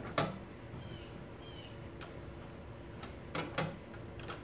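A few sharp metallic clicks of wrenches on the fuel-line fitting nuts as they are tightened snug against each other: one near the start and two close together about three and a half seconds in.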